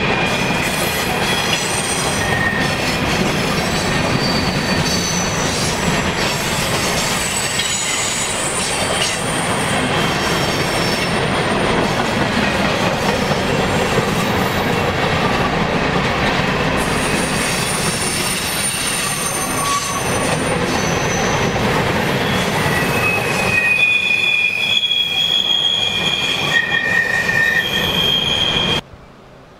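Open-top coal cars of a long freight train rolling past close by on a curve: a steady rumble and clatter of the wheels with high, shifting wheel squeal, growing stronger in the last few seconds. The sound cuts off suddenly near the end.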